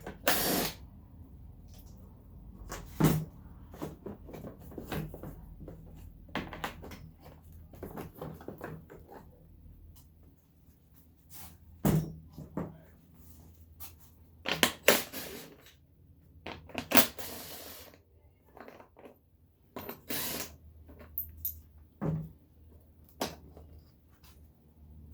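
Intermittent clicks, knocks and short rasps of hand tools, fasteners and plastic trim being worked while fog lights are removed from a car's front bumper, over a low steady hum.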